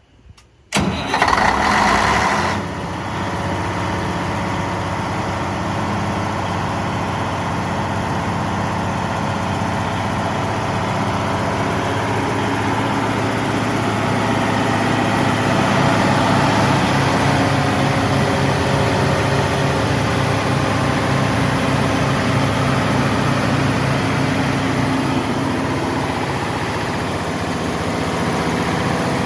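Caterpillar generator engine starting up about a second in, loud at first, then settling into a steady run.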